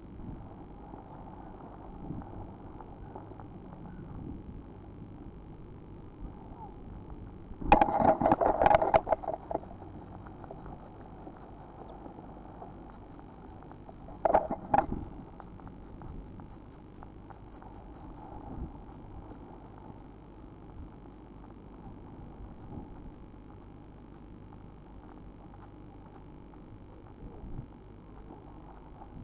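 Blue tit nestlings giving rapid, very high-pitched begging cheeps. The cheeps swell into a dense chorus after a loud scuffling of wings and feet in the nest box about eight seconds in, as an adult comes to feed them, then thin out over the next ten seconds. A shorter knock comes about halfway through.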